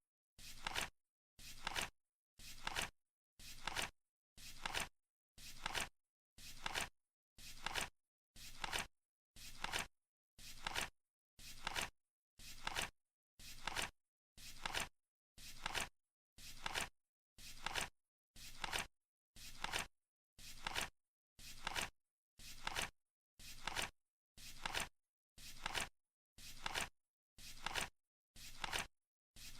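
Flip clock's seconds flap turning over once a second: a short flipping sound that swells to a sharp clack, with silence between each flip.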